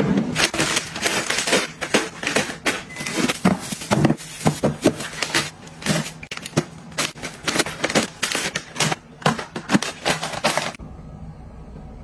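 Frozen food packages being put into a plastic freezer drawer: quick crinkling of plastic wrappers and taps of packages and cardboard boxes against the drawer. The handling stops about three quarters of the way through, leaving a quieter steady background.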